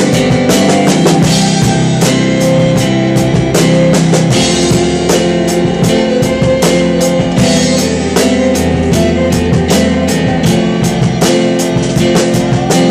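Live rock band playing an instrumental passage: a drum kit keeping a steady beat on cymbals and drums under sustained keyboard and violin notes.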